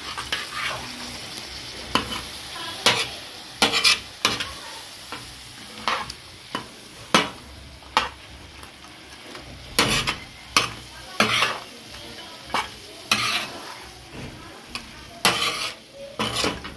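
A metal spatula scraping and clanking on a large tawa, stirring freshly added yogurt into mutton chops, with irregular strokes about once or twice a second over a steady sizzle of the meat and oil.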